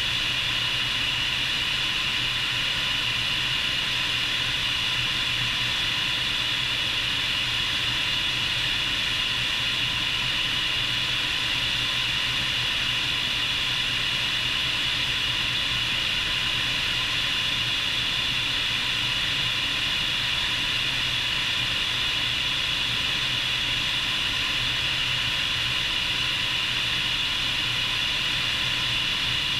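Bell 430 twin-turbine helicopter running steadily in flight, heard from outside on its wing: an even rush of wind and engine noise with a constant high hum and a low drone underneath.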